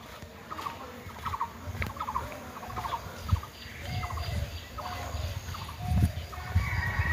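Coloured pencil shading on paper: quick back-and-forth scratching strokes in short repeated bursts, with dull low knocks from the hand and pencil on the drawing surface.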